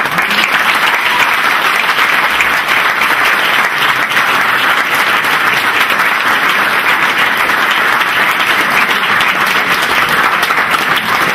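Loud, steady applause from a large crowd, a dense patter of many hands clapping.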